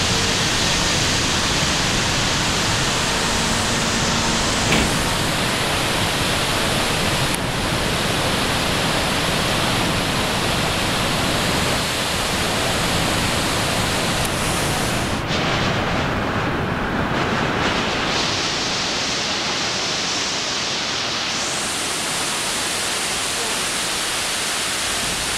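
Water rushing out from under the partly opened steel spillway gates of a reservoir dam and pouring down the concrete spillway. It is a steady, loud rush: a controlled release of water from the reservoir.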